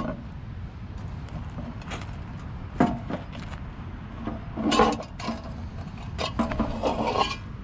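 Knocks, clinks and scrapes of a camp oven's ash-covered lid being gripped with a towel and worked off the pot, the sharpest knocks about three and five seconds in, over a steady low rumble.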